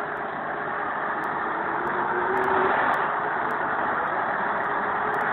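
Farm tractor's engine running steadily, getting a little louder about two seconds in.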